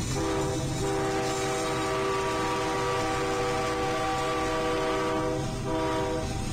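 Diesel freight locomotive's air horn sounding for a grade crossing: a long blast, then a shorter one near the end, over the low rumble of the passing train.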